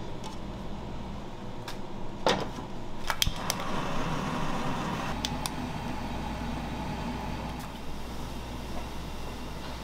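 Gas stove burner flame running under a pot of soy-and-chili marinade as it heats, a steady rushing over a low hum. A few sharp clicks and knocks come about two to three seconds in.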